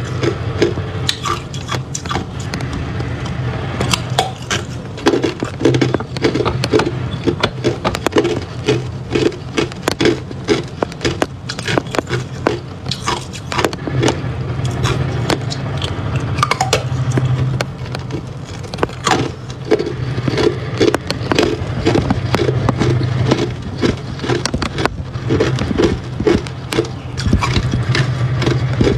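Hard clear ice being bitten and chewed close to the microphone: a dense, irregular run of sharp crunches and crackles, over a steady low hum.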